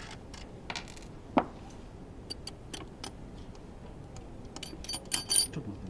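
Light metallic clicks and taps from hands loosening and handling the connecting-rod fasteners of a Honda RA100E V10 Formula 1 engine. There is one louder metal knock with a short ring about a second and a half in, and a quick cluster of bright metal clinks near the end.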